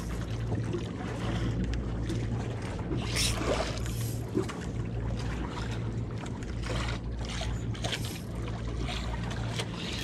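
A boat's engine running steadily with a low hum, under a wash of wind and water noise.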